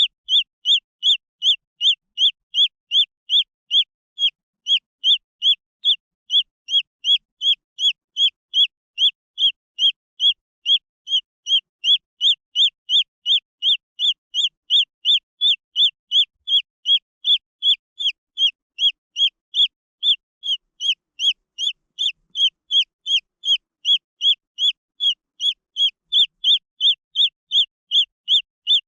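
Green junglefowl chick peeping: short, high, slightly falling peeps repeated steadily at about two and a half a second.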